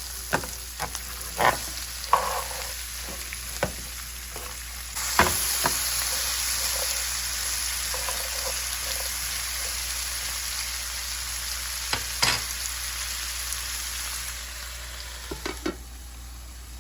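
Long beans sizzling in hot oil in a frying pan while a spatula stirs them, knocking and scraping against the pan. About five seconds in the sizzle grows louder, and it quietens near the end.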